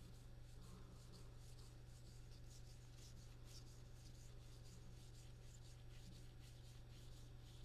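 Faint rustling and sliding of trading cards flipped through by hand, in many quick soft strokes over a steady low hum.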